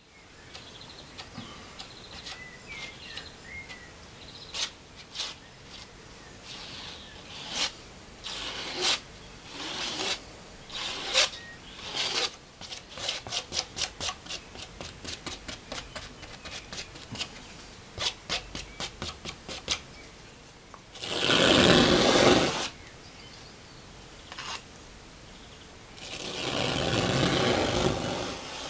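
Small painting spatula scraping smooth filler paste onto a stretched canvas in short strokes, with quick runs of about three or four strokes a second in the middle. About two-thirds through, and again near the end, come two longer, louder rubbing noises lasting a second or two each.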